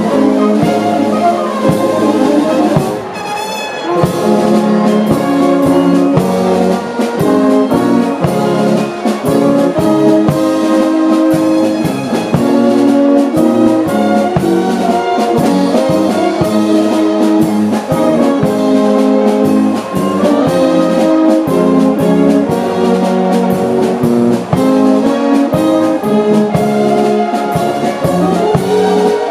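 Bavarian town brass band playing: trumpets, flugelhorns, clarinets and low brass in held notes over a steady beat, with a brief lull about three seconds in.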